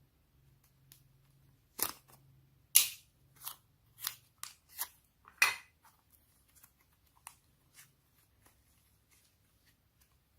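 Sticky slime being pressed and pulled by hand, giving a string of sharp pops and clicks, most of them bunched in the first half, then only faint scattered ticks.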